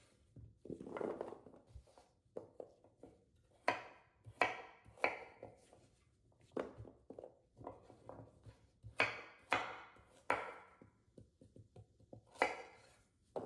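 Chef's knife chopping carrots on a wooden cutting board: a run of irregular chops, the loudest in two quick groups of three.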